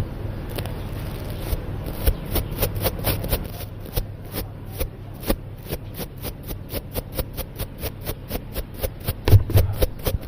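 Quick, even close-up strokes of an ASMR trigger, brushing or tapping right at the microphone, about four or five a second, with a few louder strokes near the end.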